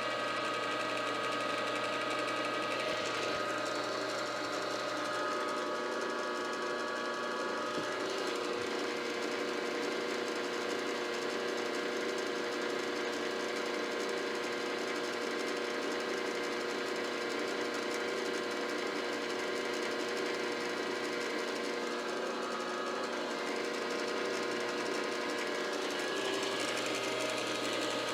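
Milling machine running steadily, its motor and spindle drive giving an even mechanical whir made of several steady tones.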